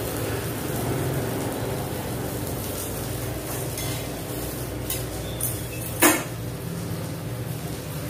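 Onion paratha frying in ghee on a tawa over a gas stove, a steady sizzle, with the clink of a metal spatula against the pan. A few sharp knocks, the loudest about six seconds in.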